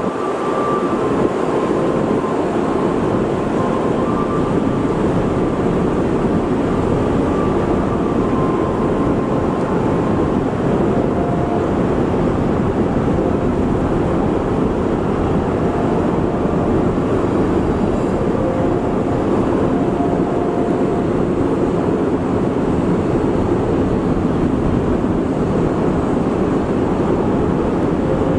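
Steady, loud rumble of a large car ferry's engines and machinery as the ship manoeuvres away from its berth, with faint on-and-off tones above it.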